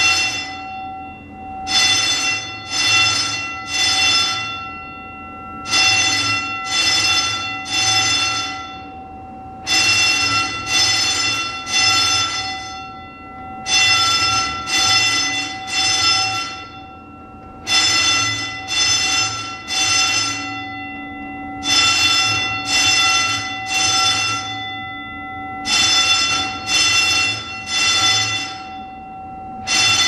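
Building fire alarm ringing in groups of three rings separated by a short pause, repeating about every four seconds: the temporal-three evacuation signal, sounding during testing of a new fire alarm panel.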